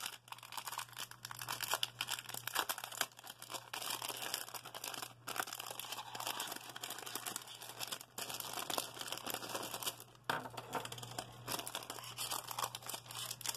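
Small clear plastic bag crinkling and rustling as fingers work it open and pull a keyring out of it, stopping briefly a few times.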